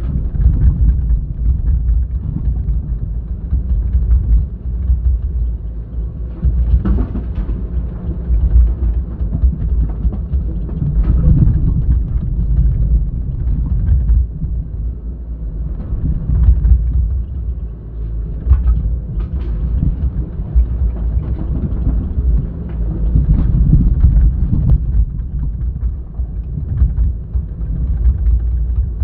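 Excavator's diesel engine working with a loud, low rumble that swells and fades, and a few sharp knocks.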